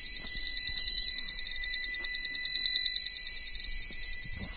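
Steady high-pitched electrical whine with a fast flutter, from a power inverter running a high-voltage coil circuit under load; it swells for a couple of seconds in the middle.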